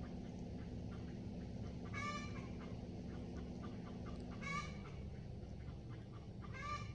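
A chicken giving three short calls, about two seconds apart.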